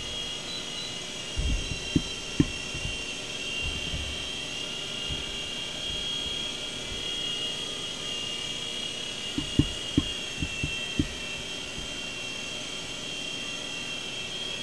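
Small electric Blade RC helicopter in flight, its motor and rotor giving a steady high-pitched whine, with a few low knocks twice along the way.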